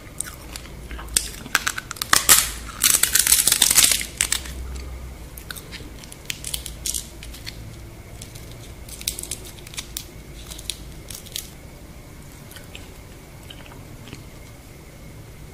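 Deep-fried scorpion crunching and crackling: loud, crisp crunches in the first four seconds, then scattered sharp snaps as the fried shell is broken apart by hand, dying away near the end.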